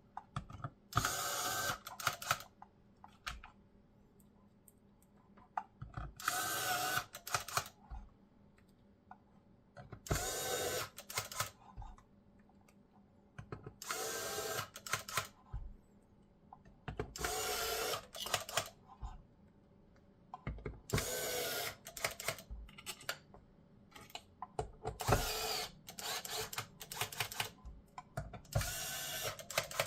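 Electric screwdriver driving screws into an Xbox Series X's case, in eight short whirring runs of about a second each, every three to four seconds, with light clicks of handling between them.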